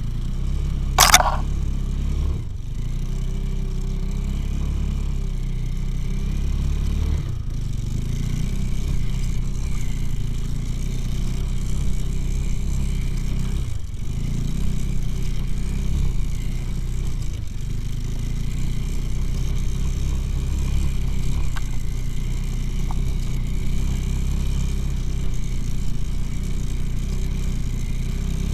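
Engine of an all-wheel-drive off-road motorcycle running steadily under load as it rides through snow, with a few brief dips in level. There is one short, sharp noise about a second in.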